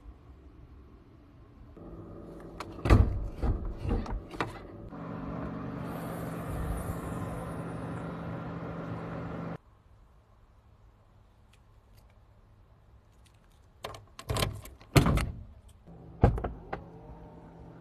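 Car body lids being handled: a cluster of clunks and knocks about three seconds in and another near the end, over a steady hum that cuts off abruptly about halfway through.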